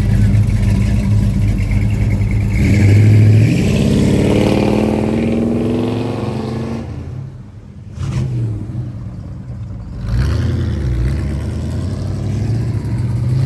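Mopar muscle car engines: a loud, low rumble, then one car revs and accelerates away with its pitch rising for about four seconds before it drops off. More engine rumble follows, and another engine begins to rise near the end.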